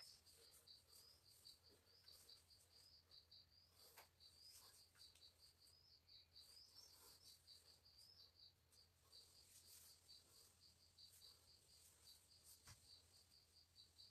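Near silence: faint, even chirping of an insect, about three or four chirps a second, with a few soft clicks.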